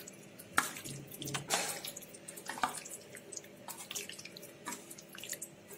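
Bare hand mixing marinated chicken pieces in a steel bowl: irregular wet squelches and smacks as the coated meat is turned over, above a faint steady hum.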